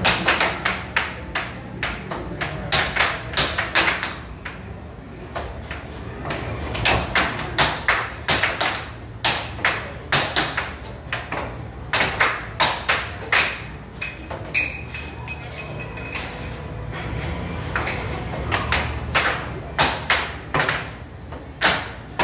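Air hockey puck and plastic mallets clacking: sharp hard hits in quick volleys as the puck is struck and rebounds, with a few short lulls, over a steady low background hum.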